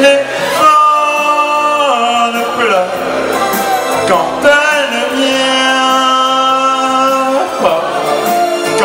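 A man singing into a handheld microphone over a recorded backing track, holding two long notes that each slide down in pitch at the end.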